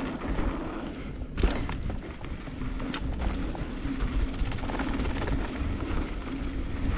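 Wind rumbling over the camera microphone and mountain bike tyres rolling on a dry dirt singletrack, with a few sharp knocks and rattles of the bike over bumps, the loudest about one and a half seconds in.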